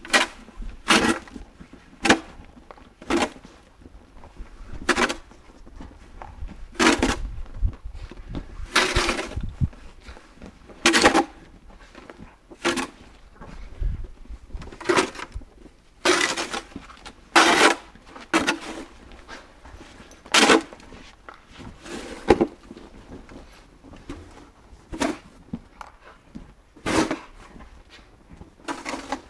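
Plastic snow shovel scraping and scooping snow, a short stroke every second or two.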